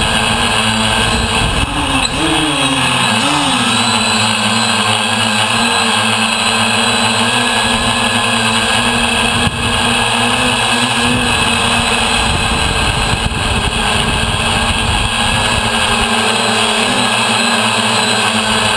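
DJI Flame Wheel F550 hexacopter's six electric motors and propellers whirring steadily, heard close up from a camera on the airframe. The pitch wavers up and down a couple of seconds in as the motor speeds change, then settles.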